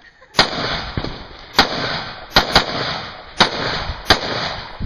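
Six rifle shots fired at an uneven pace, two of them in quick succession about two and a half seconds in, each followed by a lingering echo.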